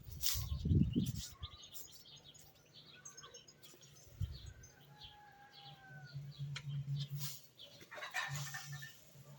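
Small birds chirping and whistling, many short high chirps with a few longer gliding notes. A loud call from the farm fowl fills the first second. The call fades out as the birdsong takes over.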